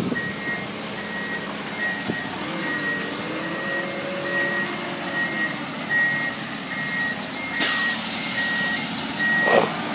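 A backup alarm beeping at an even pace over a running engine whose pitch rises and falls. About three-quarters of the way in, a sudden loud hiss lasts just over a second.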